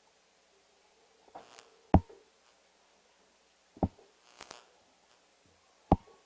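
Three sharp knocks or taps about two seconds apart, with short rustles in between and silence otherwise.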